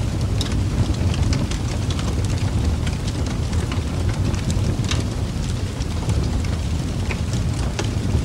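Steady rain ambience: an even rushing noise with scattered sharp drop ticks over a low rumble.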